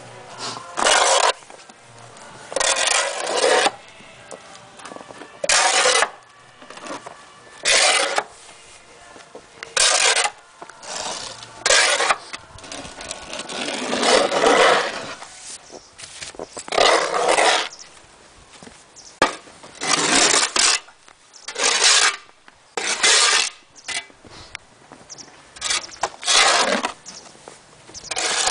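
Snow shovel scraping snow off a driveway in repeated short strokes, roughly one every second or two.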